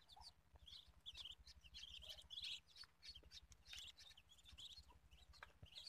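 Muscovy ducklings peeping faintly: a quick scatter of short, high peeps.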